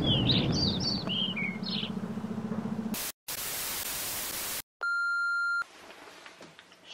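Small birds chirping over wind rumbling on the microphone for about three seconds. After a brief dropout comes a second and a half of TV-static hiss, then one steady electronic beep: a camcorder-style sound effect.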